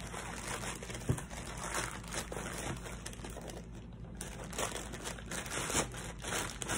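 Crinkling and rustling of packing wrap being handled and pulled open by hand, in irregular crackly bursts.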